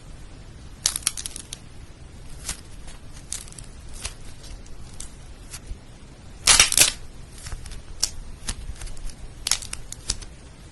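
Food-shaped slime being handled, giving irregular sharp crackles and clicks, with a louder dense crunch about six and a half seconds in.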